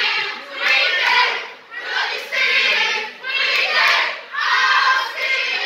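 A crowd of young voices chanting together in loud, rhythmic phrases, about one a second.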